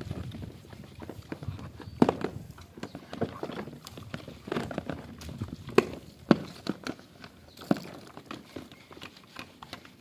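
Irregular knocks, clacks and rubbing as plastic vacuum-cleaner parts are scrubbed clean with a piece of sacking.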